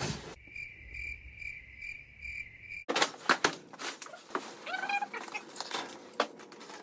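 Cricket-chirping sound effect, an evenly repeated high chirp that starts and stops abruptly, used as a comic 'crickets' gag after a failed joke. About three seconds in it cuts out, giving way to knocks and scrapes of a large cardboard box being set down and shifted on a pickup tailgate.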